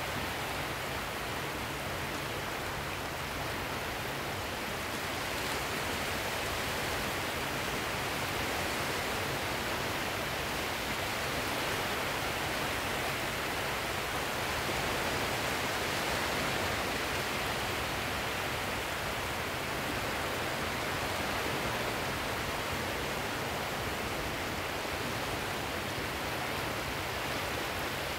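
Steady rushing hiss of sea surf that swells gently in loudness and eases off again.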